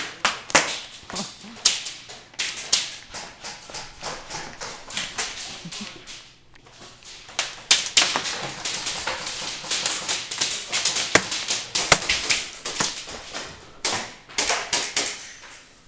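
Airsoft guns firing in quick irregular bursts, with BBs cracking against plywood and cardboard cover; the sharp clicks come thickest from about halfway through.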